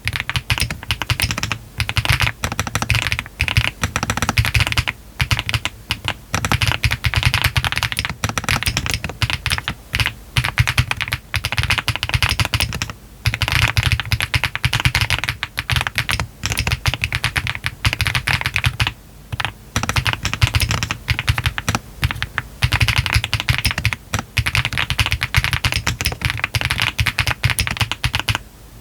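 Continuous typing on a Meletrix ZOOM TKL mechanical keyboard with Yogurt switches, all foams installed, a PC flex-cut plate and cherry-profile PBT keycaps: a dense run of keystrokes broken by short pauses every few seconds.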